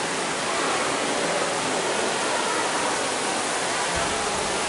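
Steady, even rushing of water from the jets and cascades of a cave thermal bath's pool.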